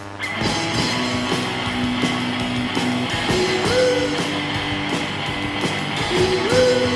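Rock music with electric guitar, steady notes and a short rising, sliding phrase that comes twice, about three seconds apart.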